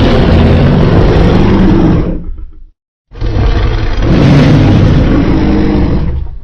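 Custom Godzilla roar sound effect: two long, loud, harsh monster roars with a deep low end. The first fades out a little past two and a half seconds in, and the second starts right after a short pause and cuts off suddenly near the end.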